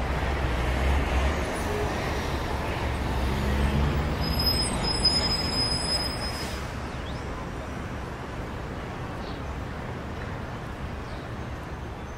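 Steady low rumble of distant road traffic, slowly fading out through the second half.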